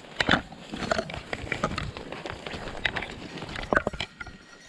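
Footsteps crunching through dry leaves and underbrush, with stems and twigs snapping and brush rustling against the body as a person pushes through thick cover, in an irregular run of crackles and snaps.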